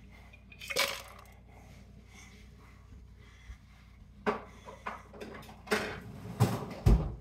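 Ice cubes being dropped into a plastic blender cup, sharp clattering knocks: one about a second in, then a run of louder ones in the last three seconds.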